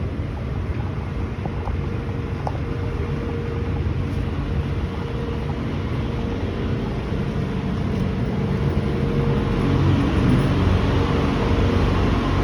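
Water taxi's engine running steadily with a low hum and water and wind noise, growing louder in the last few seconds.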